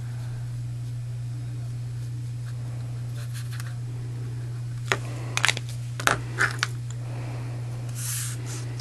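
A few sharp clicks and clacks of small craft tools, a glue pen and scissors, being handled and set down on a cutting mat, bunched about five to six and a half seconds in. A brief rustle comes near the end, over a steady low electrical hum.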